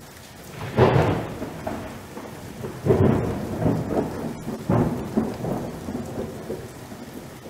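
Thunderstorm sound effect: three rolling thunderclaps about two seconds apart, each dying away slowly, over a steady rain-like hiss.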